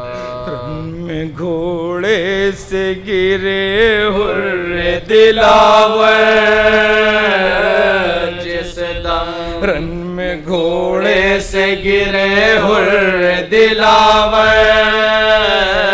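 Men chanting a marsiya, a Shia Urdu elegy, to a slow melody with long held notes that waver in pitch, and no instruments. It starts on one sustained note and grows louder about two seconds in.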